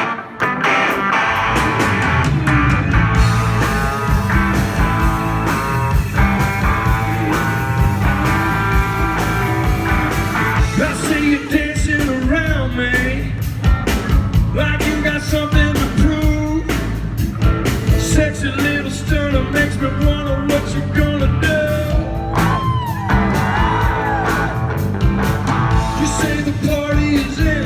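A live rock band playing the opening of a song, with drums keeping a steady beat under sustained chords. From about ten seconds in, sliding pitched lines join the music: vocal shouts or guitar bends.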